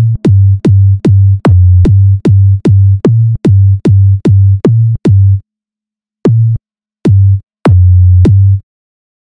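Electronic bass-test track: a run of deep sub-bass kicks with a sharp click on each attack, about two and a half a second. Near the middle it breaks off into silence broken by a few single, longer bass pulses.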